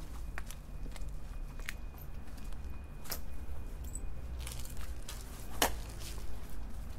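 Footsteps on hard ground: a few sharp, irregular steps, the loudest about five and a half seconds in, over a steady low rumble.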